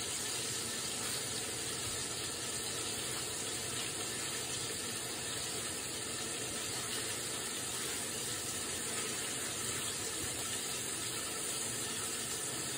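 Meat sizzling in a frying pan on the stovetop, a steady even sizzle.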